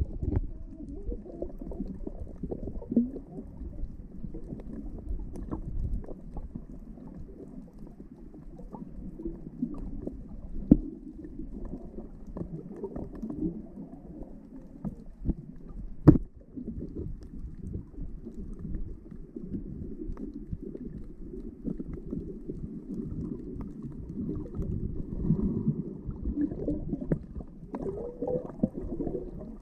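Muffled underwater sound of moving water, heard with the microphone below the surface: a low, steady rumbling wash with little high sound. Two sharp clicks break through, about eleven seconds in and, louder, about sixteen seconds in.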